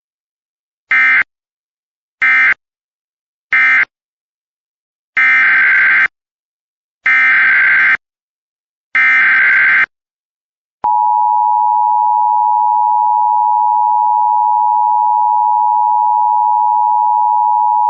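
Emergency Alert System signalling. Three short screeching data bursts are the end-of-message code of one alert. Three longer bursts follow, the SAME header of the next alert. About 11 s in, the steady two-tone EAS attention signal starts and holds.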